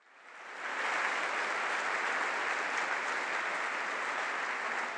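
Audience applauding, fading in over the first second and then holding steady.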